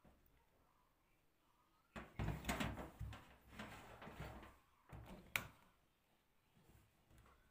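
Handling noise: a small action camera and its packaging are moved about on a table, with irregular knocks and rustles for about three seconds, ending in one sharp click.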